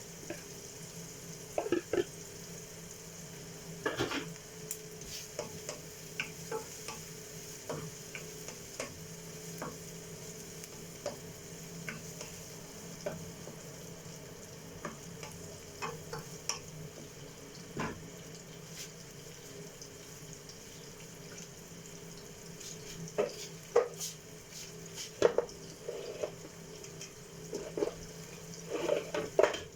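Food sizzling as it fries in a pan, stirred with a utensil that clicks and scrapes against the pan many times, more busily near the end.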